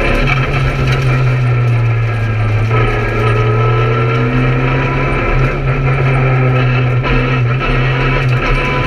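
Peugeot 208 R2 rally car's 1.6-litre four-cylinder engine running hard, heard from inside the stripped cabin, with a few brief breaks where the pitch shifts.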